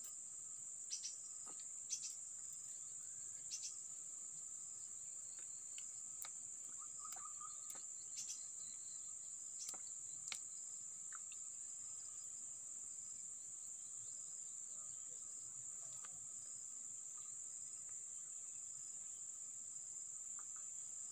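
Steady, high-pitched drone of insects, unbroken, with a few faint short clicks in the first half.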